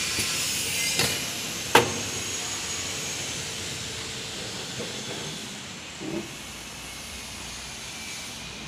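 XY-GU-27 semi-automatic tissue multi-bag packing machine running: a steady hiss, strongest at first and slowly easing off. A light clack comes about a second in, a sharp, louder clack just under two seconds in, and a small knock around six seconds.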